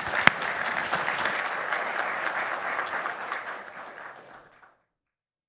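Audience applauding, with one sharp, loud clap close by just after the start. The applause fades away and stops about four and a half seconds in.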